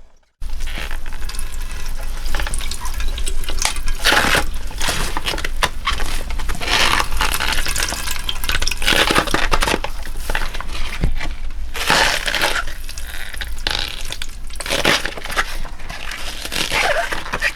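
Wet towel wrung and squeezed in water by hands in thick rubber gloves: water sloshing and trickling, with stronger surges every two to three seconds as the towel is pressed.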